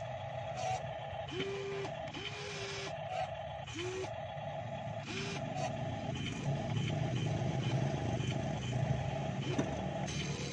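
Small electric motors of an RC model excavator whining as it drags a model pontoon across mud, stopping and starting in short spells, with the drive growing louder for a few seconds in the second half.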